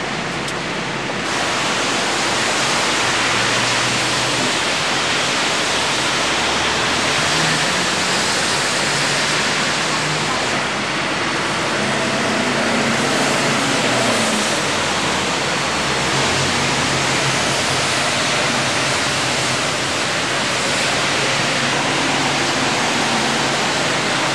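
Steady loud rushing hiss of rain and traffic on a wet city street, with faint engine hum from passing vehicles underneath.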